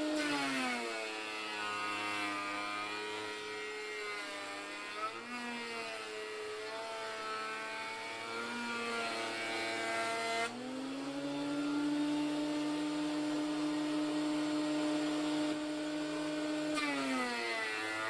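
Homemade bandsaw mill running and cutting through an elm log. Its motor drops in pitch as the blade takes the load of the cut, comes back up to speed suddenly about ten seconds in, then drops again near the end.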